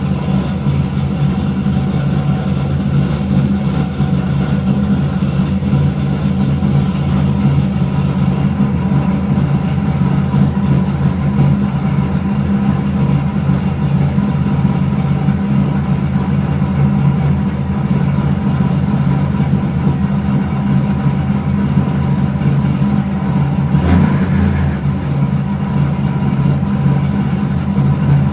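Camaro SS's stroked 427 V8 with a big cam, long-tube headers and Flowmaster 10 series mufflers, idling steadily while warming up after a cold start, heard from inside the cabin. A brief change in the engine note comes about 24 seconds in.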